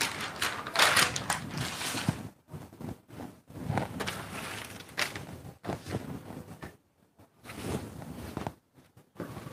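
Scissors cutting out a trouser back pattern piece along its marked line, in irregular strokes with rustling and short pauses, going briefly near silent twice toward the end.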